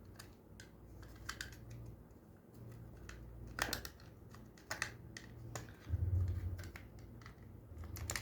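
Scattered light plastic clicks and scrapes as a smoke detector's housing and circuit board are pried apart and handled to get at the smoke sensor, over a low hum.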